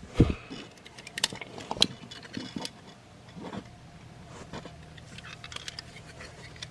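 Plastic Transformers figure being handled and transformed: irregular sharp clicks and knocks of its plastic parts as joints are turned and pieces shifted, the loudest just after the start.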